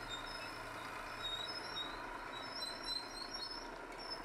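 Small vintage rope-operated dragline running steadily at a distance as it works its bucket, with short high chirps scattered over it.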